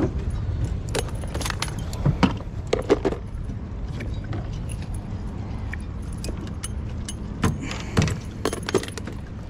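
Scattered metallic clinks and knocks of fishing gear being handled in a small boat, over a steady low rumble.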